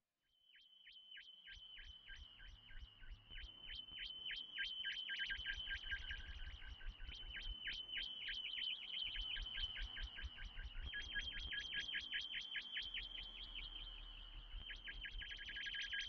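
Soma Lyra-8 synthesizer played through a Synthcone Pelengator filter, imitating birdsong: a high whistling tone broken by rapid, evenly repeated chirps that fade in and speed up. A low pulsing rumble comes in underneath after about a second and a half.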